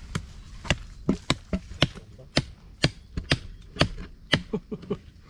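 Bolo knife (gulok) hacking into bamboo while cutting bamboo shoots: a quick, irregular run of sharp chopping strikes, about three a second, some followed by a short hollow thunk.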